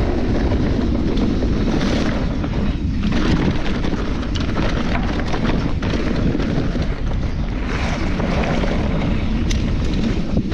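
Wind buffeting the microphone of a camera on a mountain bike while riding, with the rumble and small rattles of the bike over rough trail.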